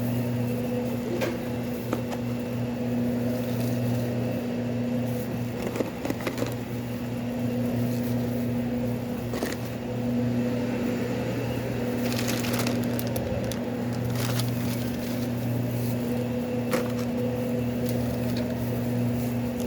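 Steady low hum of shop equipment, with scattered light clicks, taps and rustles of sandwich platter assembly.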